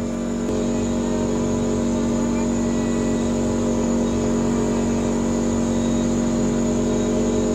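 Off-road vehicle's engine running at a steady speed, a constant even drone that holds the same pitch throughout.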